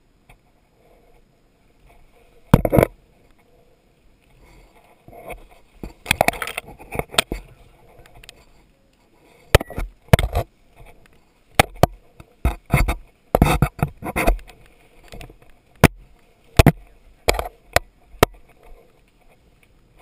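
Paintball marker shots: sharp pops fired irregularly, some alone and some in quick groups of two or three.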